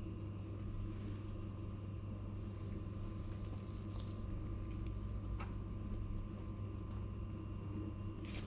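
A steady low hum with a few faint light clicks of a metal spoon touching a ceramic plate, the sharpest one near the end.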